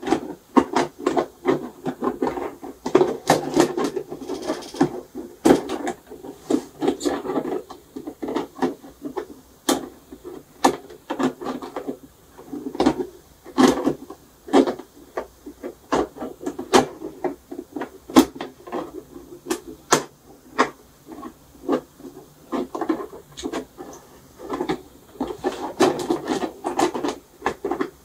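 Shoe box panels being handled and fitted together by hand: irregular clicks, knocks and rubbing as pieces are pressed and dropped into place during assembly.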